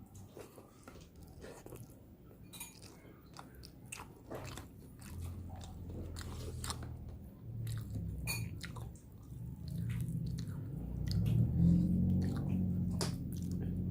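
Close-up chewing and biting with crisp crunches, many short clicks of mouth and food. A low hum builds up over the last few seconds.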